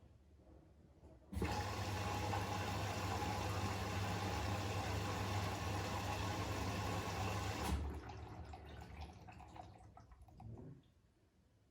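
Siemens iQ500 washing machine taking in water: the inlet valve opens suddenly about a second in, with a steady low hum under a loud rush of water, and shuts off after about six seconds, leaving water trickling and settling in the drum.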